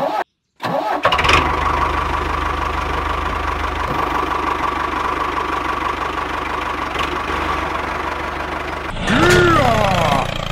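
An engine starts about a second in and runs steadily, with a fast low chugging under a steady whine. Near the end a sliding, warbling tone rises and falls over it.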